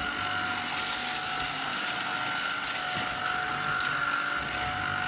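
Tineco A10 Hero cordless stick vacuum running at a steady high whine while sucking up debris from a hard floor, with scattered clicks and rattles of grit going up the wand.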